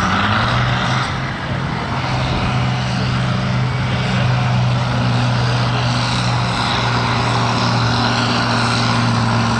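Farm tractor's diesel engine running hard at steady high revs under heavy load while pulling a sled: a loud, even drone that holds one pitch.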